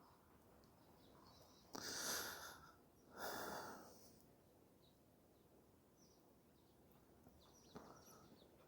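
Two heavy breaths from a person on the adjustment table, each just under a second, one close after the other; a faint click near the end.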